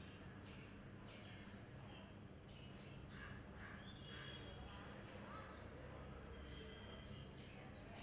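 Faint outdoor ambience: a steady high-pitched insect drone with scattered short bird chirps and whistles, including a falling whistle about half a second in.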